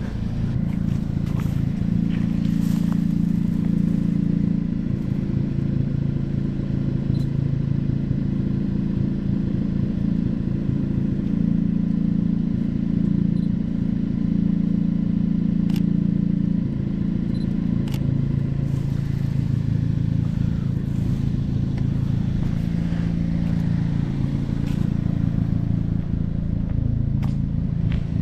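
A car engine running steadily at low revs, a continuous hum that shifts pitch slightly a couple of times, with a few faint clicks.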